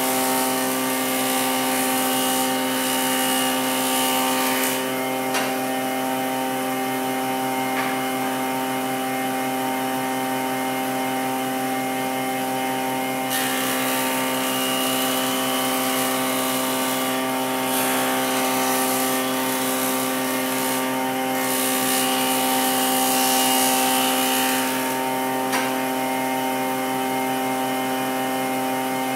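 Nishino MK-900 universal woodworking machine running with a steady hum, its cutter taking wood in three long passes, each adding a hissing cutting noise over the hum.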